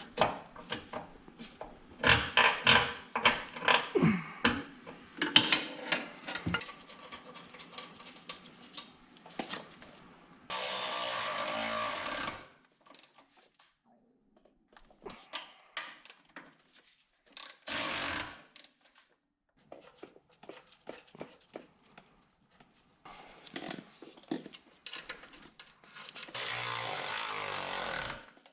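Workshop tool work on a vehicle frame: a quick run of clicks and metal knocks from hand tools, then three steady whirs of about two seconds each from a power tool, with scattered clinks between.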